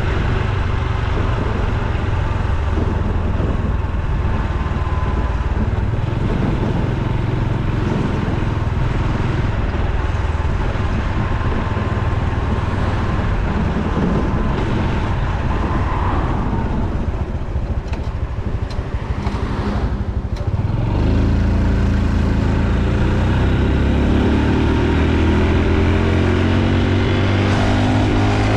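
Honda Super Cub C125's single-cylinder engine running under way, with wind and road noise. It eases off about 17 seconds in, then gets louder again about 21 seconds in, its pitch rising as it accelerates.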